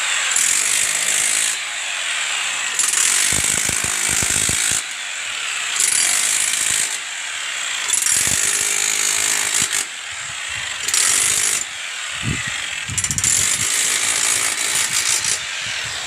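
A hand tool working on a water pipe makes repeated harsh, rasping metallic bursts, each lasting one to two seconds with short pauses between, and a few dull knocks in between.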